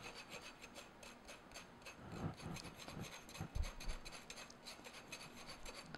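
Small fine-mesh strainer being tapped and shaken to sift powdered sugar: a faint, fast, even scratchy ticking. A couple of soft knocks come near the middle.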